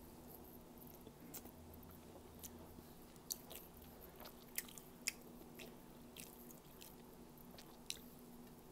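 Faint close-up chewing of fried squid and rice. Scattered short, sharp crunchy clicks and mouth sounds come every half second to a second.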